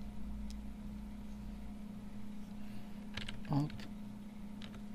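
A few separate sharp clicks of computer keys and a stylus tapping on a pen display, over a steady low electrical hum.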